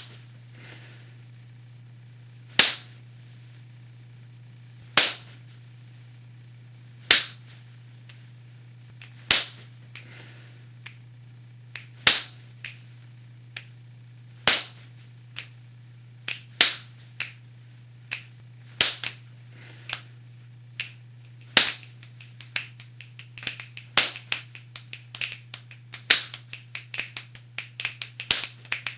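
Finger snaps and sharp body-percussion clicks, layered from several overdubbed takes of one performer: at first a single snap about every two seconds, then more layers join from about halfway, building to a quick, dense rhythm near the end. A steady low hum runs underneath.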